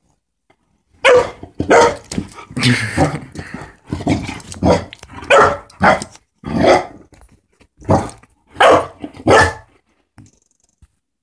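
A puppy barking at a Sphero BB-8 toy on its charging base: a run of about ten short barks, starting about a second in and stopping near the end.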